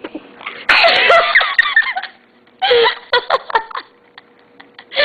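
People laughing and giggling in two loud bursts, one about a second in and another near the three-second mark.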